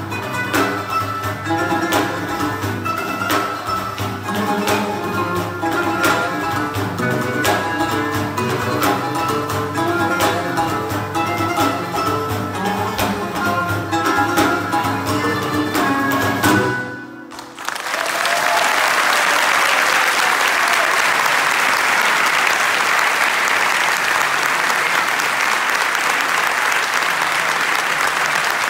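Live folk ensemble music: a daf frame drum beating a steady rhythm over plucked lutes and a string orchestra, which ends on a final note about seventeen seconds in. An audience then applauds for the rest of the time.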